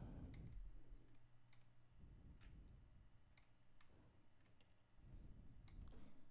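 Faint computer mouse clicks, single and irregular, about one a second, over a low room hum.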